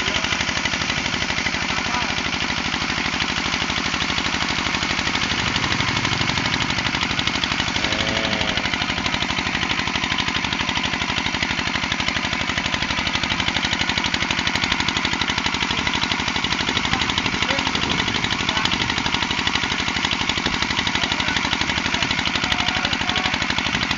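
Kubota RD 55 single-cylinder diesel engine running steadily with a fast, even firing beat, driving an NS 80 irrigation water pump, with water gushing from the pump's outlet.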